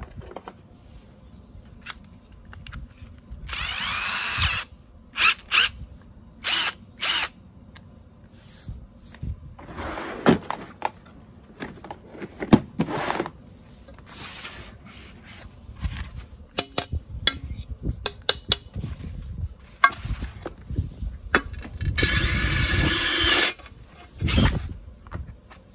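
TEENO PSR 21V cordless drill-driver run in a string of short bursts, with clicks and handling noise between runs and one longer run near the end.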